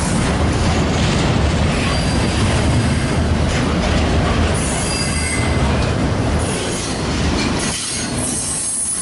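A train running past close by: a steady rumble and rattle of wheels on the rails, with a faint high wheel squeal about five seconds in.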